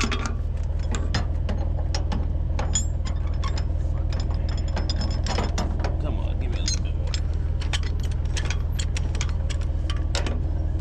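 Tie-down chains and a ratchet load binder clicking and clanking in quick, irregular strokes as the excavator's bucket is chained down to the trailer. A steady low engine hum runs underneath.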